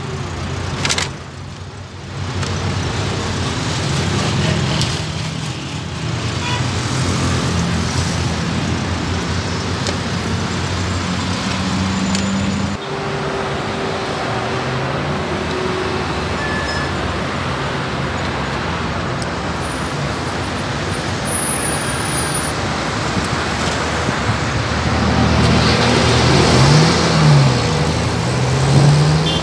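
Road traffic noise: vehicles passing on a busy street, with engine pitches rising and falling and one passing louder near the end.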